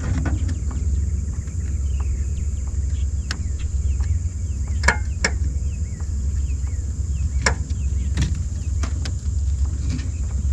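Sharp knocks and clicks of gear being handled in a small boat, over a steady low rumble; the loudest are a pair about five seconds in and another about two and a half seconds later.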